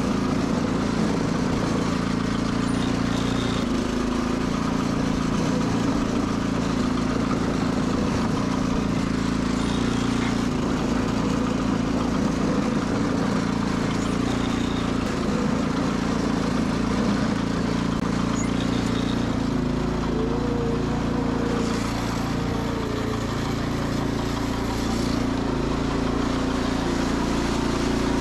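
Sears Suburban SS12 garden tractor engine running steadily, its pitch shifting slightly now and then.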